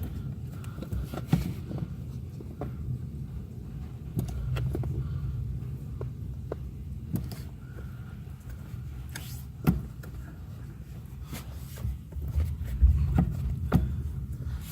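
Scattered sharp clicks and knocks of hands working a loose plastic tab and trim under the dashboard above the brake pedal, over a low rumble of shuffling and handling noise.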